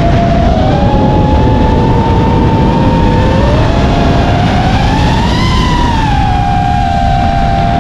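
FPV quadcopter's brushless motors whining, with a rushing rumble underneath. The pitch glides up and down with the throttle: two tones drift apart early on and rejoin, rise to a peak about five seconds in, then settle to a steady whine.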